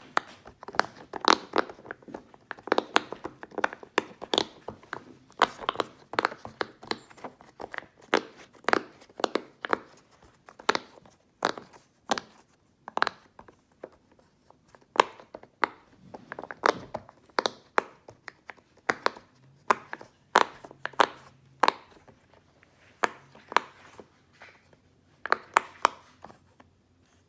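ASMR tapping and clicking on a giant game-controller puppet toy: irregular sharp taps, about one to three a second, some in quick little clusters.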